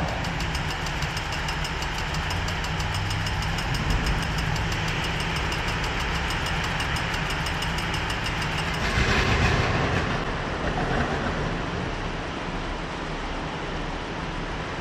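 A Melbourne tram running along street tracks: a steady rumble with the clatter of wheels on rail. A rapid, even ticking runs through the first eight seconds or so, and a louder rush of noise swells about nine seconds in, then eases off.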